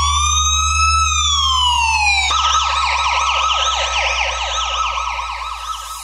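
Police car siren in wail mode, one slow rise and fall in pitch, switching about two seconds in to a fast yelp that warbles rapidly up and down. A low steady hum runs underneath.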